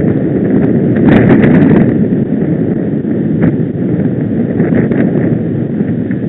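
Wind buffeting the microphone of a camera on a moving road bike, a loud steady rumble mixed with road noise, with a few sharp clicks about a second in.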